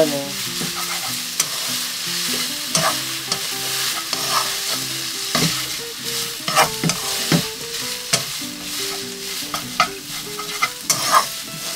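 Shredded dried fish strips sizzling in oil with soy sauce and sugar in a nonstick frying pan, stirred with wooden chopsticks that click against the pan now and then.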